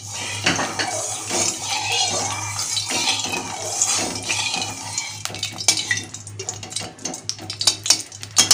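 Dried red chillies sizzling and crackling in hot mustard oil in a metal kadai: the tempering (phoron) stage of the oil. Sharp metallic clinks and ticks come thick near the end.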